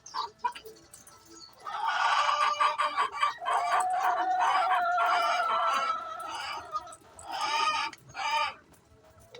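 Chicken calling loudly: a long drawn-out call lasting several seconds, then two shorter calls near the end.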